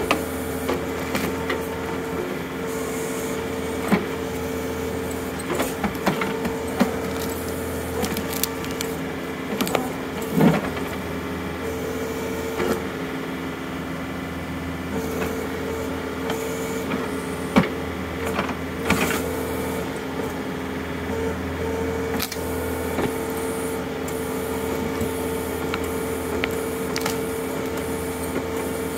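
John Deere compact utility tractor's diesel engine running steadily under load while its backhoe hydraulics whine, as the bucket digs and pries out a tree stump. Scattered sharp cracks and knocks come from roots and wood breaking, the loudest about ten and seventeen seconds in.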